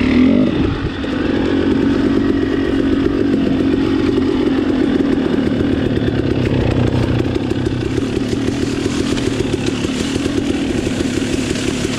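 Off-road dirt bike engine running under riding, with a brief burst of throttle at the start, a dip about a second in, then a steady drone.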